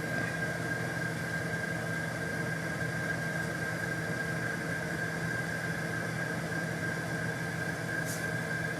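Steady mechanical hum of a running motor, with a constant high whine over a low drone and a faint click near the end.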